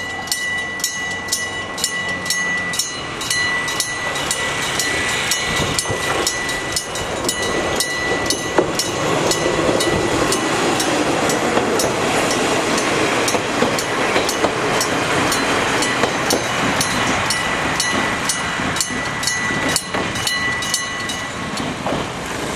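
Old-style electric level-crossing bell striking steadily, about two strikes a second, with a train running past through the middle; the bell stops near the end.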